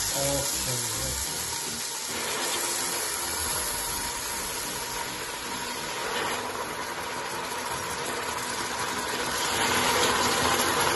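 Hot vegetable broth sizzling and hissing steadily in a hot stainless-steel pot of toasted Carnaroli rice as the first ladleful boils off in steam; the hiss swells again near the end as the rice is stirred.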